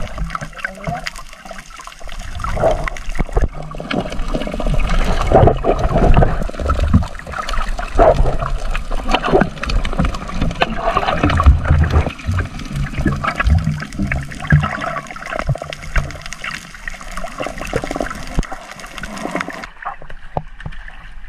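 Underwater splashing and bubbling from swimmers working a net, muffled through an underwater camera, with many irregular knocks. Near the end it changes suddenly to the softer sound of surface water.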